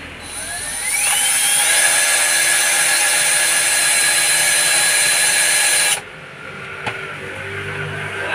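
Cordless drill driving a screw into a van seat back: the motor whine rises as it spins up, runs steadily for about four seconds, then cuts off suddenly.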